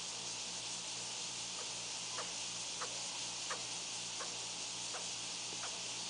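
Steady hiss of room tone with a low hum, and a run of faint, evenly spaced ticks about one and a half a second through the middle.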